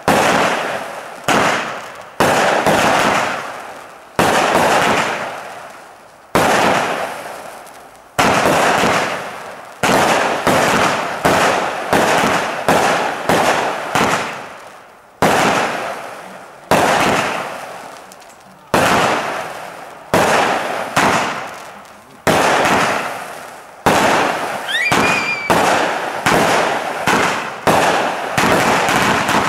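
Weco Power Punch 36-shot firework battery firing: a sharp bang every second or two, each trailing off over about a second, with the shots coming closer together near the end. A brief rising whistle sounds among the last shots.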